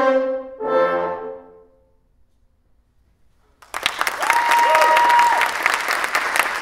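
A quintet of French horns plays its final notes, which ring off into about two seconds of silence; then the audience bursts into applause, with a brief cheer over it.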